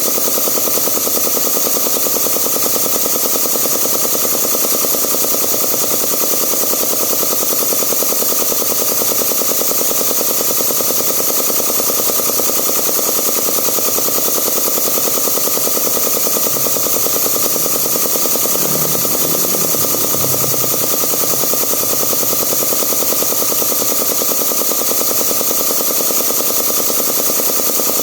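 Small Zacchi piston air compressor running steadily, its piston pumping as a rapid, even chatter.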